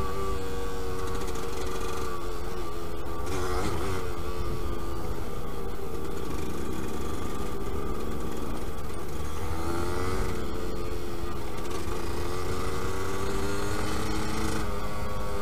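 Yamaha DT125 YPVS two-stroke single-cylinder engine running on the move, its pitch dipping and climbing back twice, about three and a half and ten seconds in, over a steady low rumble.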